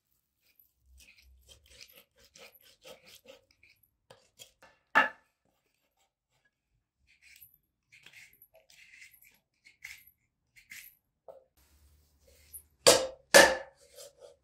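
Faint clicks and rustles of handling, with one sharp knock about five seconds in and two more, half a second apart, near the end.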